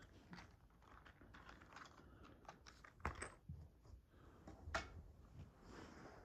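Faint handling sounds of unpacking a small Bluetooth speaker: scattered light clicks and rustles, with two sharper clicks about three and five seconds in.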